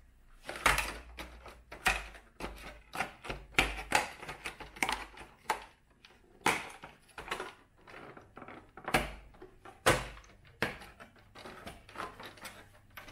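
Small plastic toy pieces and packaging being handled in a plastic toy case: irregular clicks, taps and rustles, with a few dull knocks against the table.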